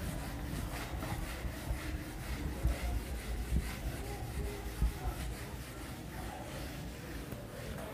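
Yellow hand-held duster wiping marker off a whiteboard: repeated back-and-forth rubbing strokes, with dull low thumps.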